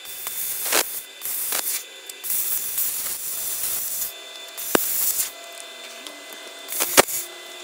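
A metal-cutting tool cutting into the rusted rear frame rail of a 1958 VW bus, making repeated bursts of harsh hissing with short pauses between cuts and two sharp clicks. Something inside the frame tube is sizzling from the cut.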